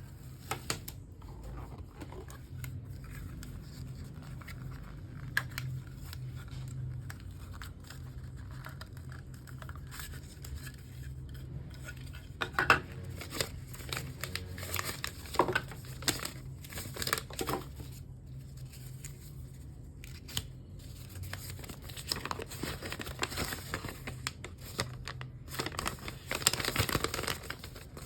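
Watch packaging being opened by hand: irregular crinkling, rustling and tearing of plastic and paper with scattered clicks, busier in the second half, over a faint steady low hum.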